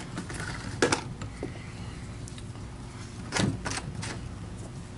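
Hand handling of tools and parts at a workbench: a sharp click a little under a second in, then a duller knock and another click about three and a half seconds in, over a faint low steady hum.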